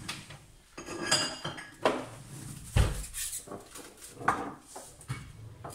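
Kitchen dishes and cutlery clinking and knocking on a countertop: several separate sharp clinks and clatters as plates, bowls and jars are handled.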